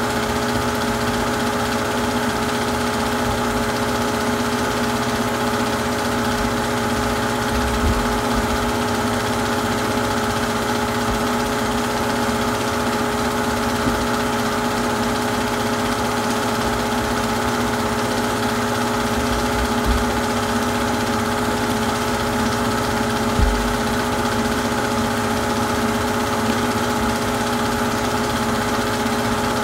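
Super 8 film projector running: a steady motor whirr and hum, with a few faint low bumps.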